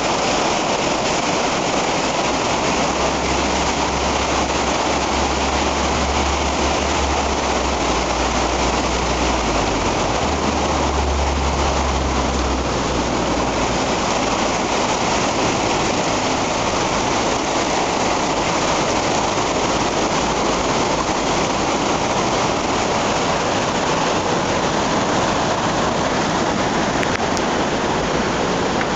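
Rydal Beck in flood: fast, high water rushing loudly and steadily. A low rumble sits underneath for the first dozen seconds or so.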